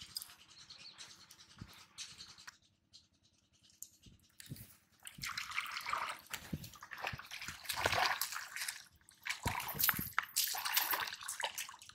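Water splashing in irregular bursts from about five seconds in, as a hooked fish is hauled in through the shallows and fights at the surface.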